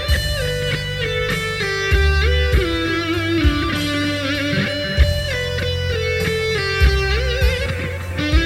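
Custom-built Ibanez RG electric guitar playing a sustained lead melody with pitch bends and a wide vibrato about three quarters of the way in, over a rock backing track with drums and bass.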